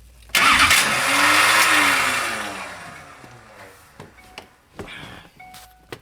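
Starter on a 2004.5 Duramax LLY diesel grinding as it is engaged: a sudden harsh grind with a whine that rises and then falls away over about three seconds, without the engine starting, followed by a few faint clicks. The owner blames a failing starter.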